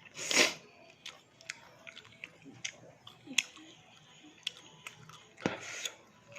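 Close-mic eating sounds from chewing fried fish with rice: many sharp little clicks and crunches. Two louder brief rushing noises, one just after the start and one near the end.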